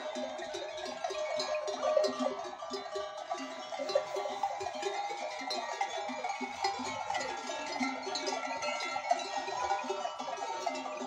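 Many goat bells on a large herd of goats clanking and jangling together without pause as the animals move, an irregular overlapping clatter of ringing tones, with goats and kids bleating among them.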